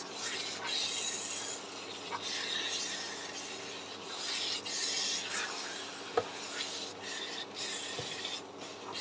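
Silicone spatula stirring and scraping thick mashed olive pickle in oil around a non-stick wok: a steady rasping rub that swells and fades with each stroke, with a sharp click about six seconds in.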